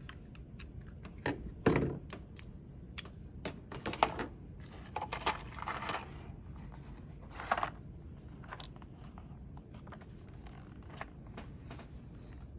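Scattered handling noises from an Ethernet cable and cable tester: sharp clicks and short knocks, the loudest about two and four seconds in, with bits of rustling in between.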